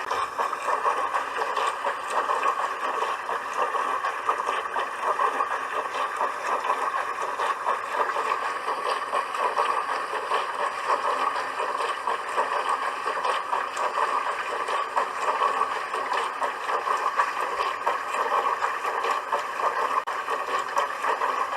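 Dishwasher running its wash cycle: a steady rush of water churning and spraying inside the tub, with a fluttering, even texture and no pauses.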